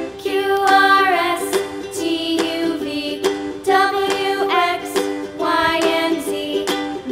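Background music: a sung children's rhyme over an accompaniment with a steady beat.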